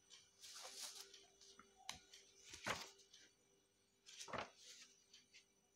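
Pages of a paperback book being turned by hand: a few faint, short paper rustles.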